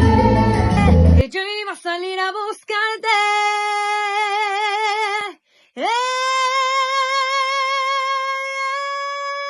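Salsa band music stops about a second in, leaving a lone unaccompanied singing voice: a few short sung phrases, a brief break, then one long note held with vibrato.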